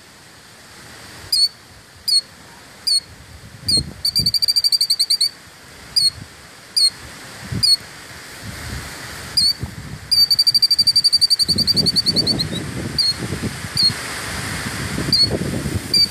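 Killdeer alarm calling: single sharp, high notes roughly one or two a second, broken by three rapid trills, the longest lasting about two seconds and dropping in pitch at its end.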